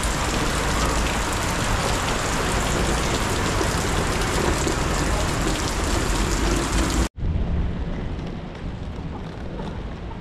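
Steady rain, a dense even hiss with a low rumble. About seven seconds in it cuts off abruptly, and a quieter, duller background noise follows.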